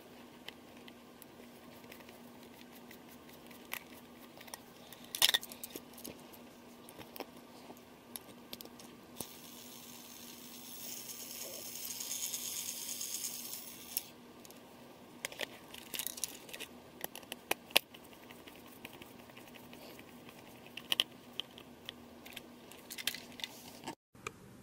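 Scattered clicks and rattles of a plastic motorized toy engine being handled while a battery is fitted, with a few seconds of hissing noise around the middle.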